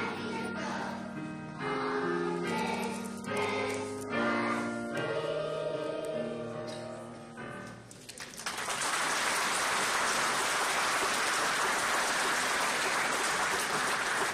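Children's choir singing to music, the song ending about eight seconds in, followed by steady audience applause.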